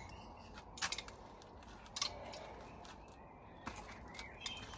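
A few faint, scattered clicks and knocks of hardware being handled as a hydraulic gate door closer comes off its mounting, with faint bird chirps.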